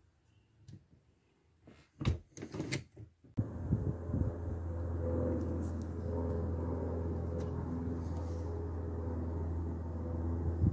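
A plastic-framed house window being opened: a quick run of clicks and knocks from the handle and frame about two seconds in. Once it is open, a steady low rumble of outdoor noise comes in.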